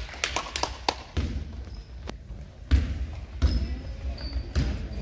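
Basketball dribbled on a hardwood gym floor: a handful of low thumps about a second apart, with short sneaker squeaks in between.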